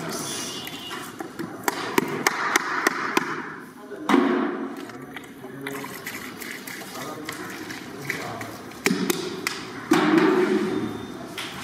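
Voices talking amid scattered knocks and taps of utensils, with liquid splashing as it is poured into a large metal cooking pot.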